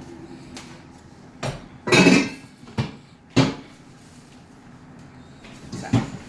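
Cooking pots being handled: a handful of separate metal knocks and clanks, the loudest about two seconds in with a short ring.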